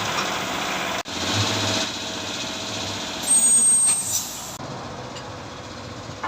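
Vehicle engine running, with a loud, high-pitched hiss lasting about a second just past the middle. The sound changes abruptly twice.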